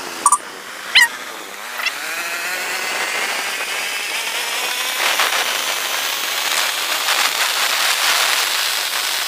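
Honda scooter's engine pulling away, its note rising steadily as it gathers speed, with wind and road noise. Two short, loud, high-pitched sounds come in the first second.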